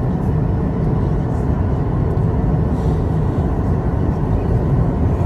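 Steady low drone of a Boeing 737-800's CFM56-7B engines and airflow heard inside the passenger cabin.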